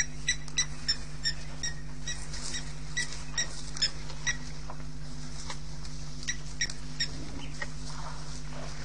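Quick series of short, high chirps from a small animal, about three a second, thinning out to a few scattered ones after about four seconds, over a steady low electrical hum.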